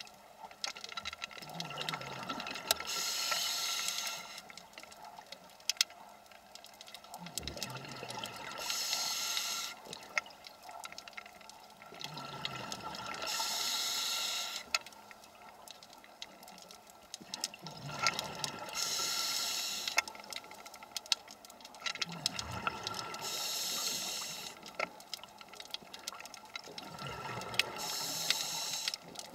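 Scuba diver breathing through a regulator underwater: a quieter drawn inhale, then a loud hiss and bubble rush of exhaled air, repeating about every five seconds, six breaths in all. Faint scattered clicks and crackles sound in between.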